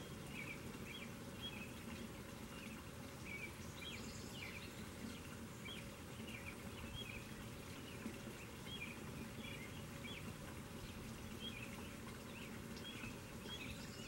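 Small birds chirping in short, irregular calls throughout, over the steady splashing of water pouring from a garden pump spout into a rock pond.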